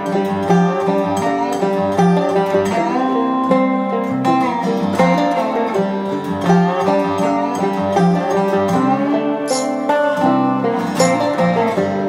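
Background music led by plucked string instruments, with a steady beat.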